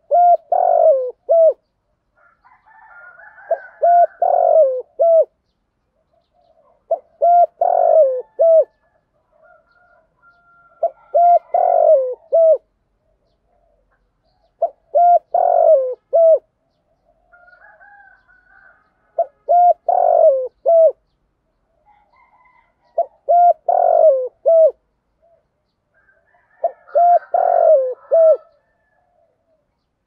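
Spotted dove cooing its song: a phrase of several low coos, the middle one longest and loudest, repeated about every four seconds. Faint higher twittering between some phrases.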